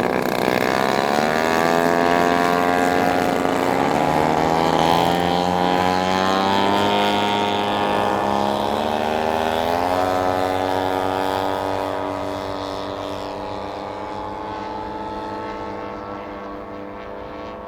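Engines of radio-controlled scale Grumman F8F Bearcat model aircraft in flight, their drone shifting in pitch several times as they pass and manoeuvre, then fading as they move away in the last few seconds.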